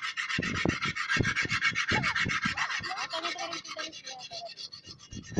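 Knife blade scraping quickly and rhythmically over the wet, rough skin of a large sea catch as it is cleaned. The scraping eases off after about three seconds, with dull knocks from the knife and hands against the body.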